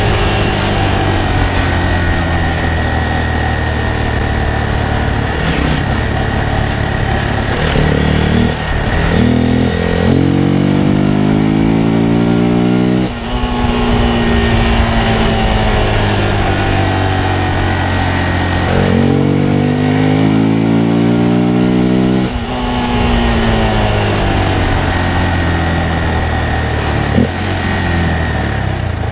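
Hero Xpulse 200's single-cylinder engine under way, heard from the rider's seat: its pitch climbs under acceleration, drops sharply about halfway through, slides down as the bike slows, then climbs and falls again.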